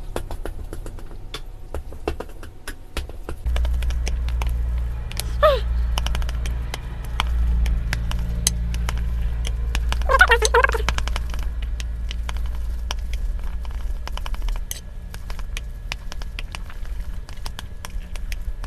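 Chopsticks stirring and tossing a bowl of thick, nearly dry spicy instant ramen noodles, with many small clicks and wet noodle sounds throughout. A steady low hum sets in about three seconds in, and a short hummed voice sounds twice.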